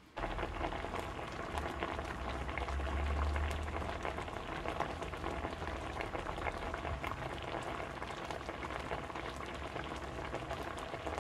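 A steady, dense crackling and pattering noise with a low rumble underneath, starting abruptly.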